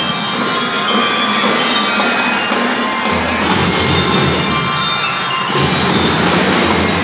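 Drum and lyre band playing: bell lyres ringing out the tune over drums, loud and steady.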